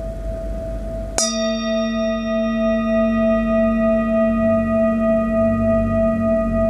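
Metal singing bowl struck once with a wooden mallet about a second in, then ringing on with a low fundamental and several higher overtones, the tones pulsing slightly. Before the strike the bowl is still ringing faintly from an earlier stroke.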